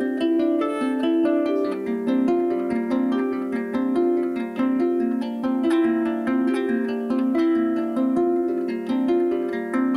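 Celtic harp played solo, without singing: a steady flow of quickly plucked notes, several a second, in a repeating pattern with ringing overtones.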